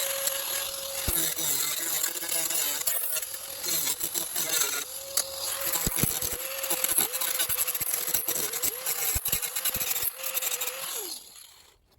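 Power tool whining as it grinds away weak, rusted sheet metal around a rust hole in a truck's rocker panel, with gritty scraping and ticking. Its pitch dips each time it is pressed into the metal, and it stops about a second before the end.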